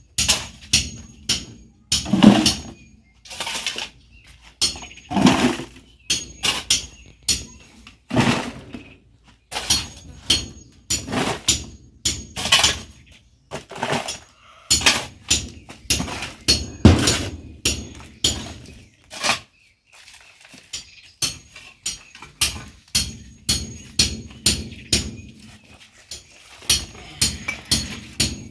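Digging in loam soil: a run of short, sharp strikes and scrapes of a digging tool, one or two a second, with a few heavier thuds among them.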